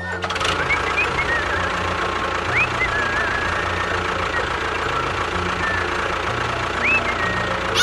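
An engine running steadily with a low, slightly pulsing drone, with a few short rising whistle-like chirps over it.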